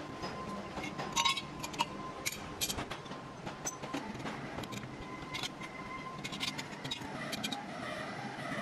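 Machine shop sounds: irregular metal clinks and knocks over a steady machine whine.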